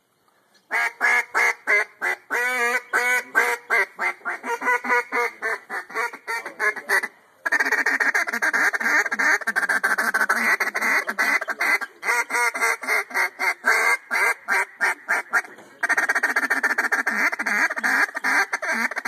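Echo duck call blown as a mallard hen call: a run of separate quacks that speeds up, then after a short pause a long, fast chatter of rapid notes, the feeding call, broken once briefly near the end.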